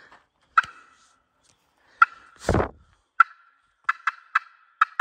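Turkey call sounded to locate a gobbler: short, sharp notes, a few spaced out at first, then coming faster near the end. One louder, deeper thump about two and a half seconds in.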